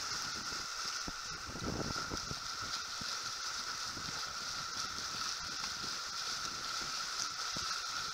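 Water rushing along the hull of a Farrier F-31 trimaran under sail, a steady wash with brief low gusts of wind on the microphone.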